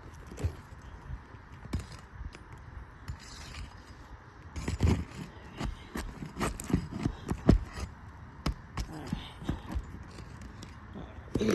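Irregular scraping and short knocks of a roof snake, a shingle-removal tool, working under asphalt roof shingles to free them.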